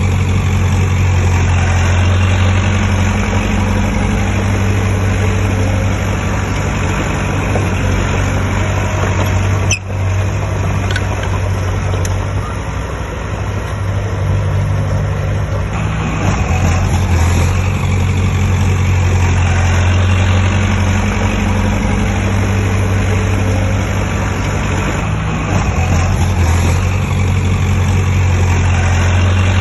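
Heavy diesel engine of earthmoving equipment running steadily with a deep, even hum. It eases off for a few seconds around the middle and then picks up again, with one sharp click about ten seconds in.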